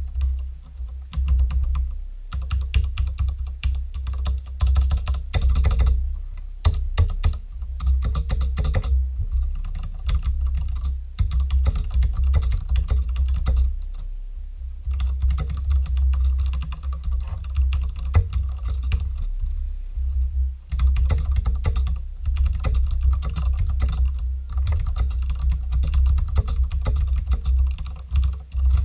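Continuous fast typing on a Ducky One TKL mechanical keyboard with Cherry MX Red linear switches and stock keycaps: rapid key clacks with a deep thock as the keys bottom out, in bursts broken by brief pauses.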